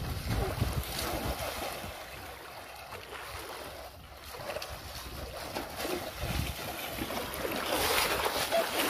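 Shallow water sloshing and splashing as a person wades through it, with wind rumbling on the microphone; quieter in the middle, louder again near the end.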